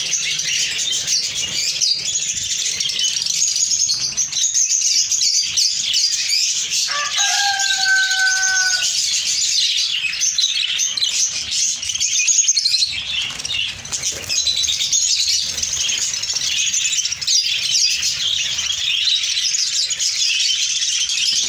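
A flock of budgerigars chattering, a continuous dense high twittering, with scattered knocks and rustles. About seven seconds in, a held whistle-like tone sounds for around two seconds.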